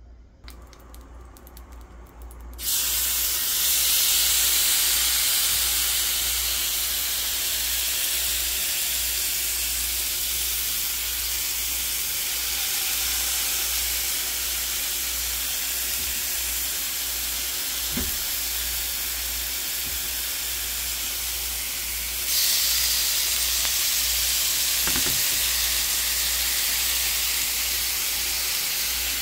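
Seasoned skirt steak sizzling on a hot ridged grill pan. The sizzle starts suddenly about three seconds in, as the meat is laid down, holds steady, and grows louder again a little after twenty seconds.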